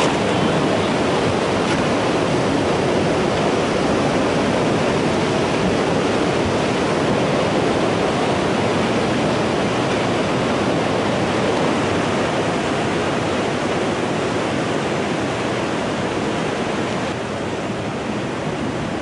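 Tsunami seawater pouring over a seawall in a steady, loud rush of water, easing slightly near the end.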